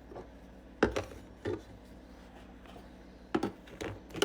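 A few light knocks and clicks of small items being handled in a mini fridge, spaced about a second or two apart over a faint steady hum.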